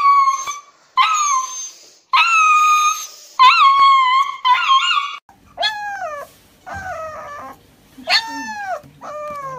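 Husky puppy howling in about five long, drawn-out cries while restrained for a veterinary injection, then, about five seconds in, another husky puppy giving shorter whining cries that fall in pitch.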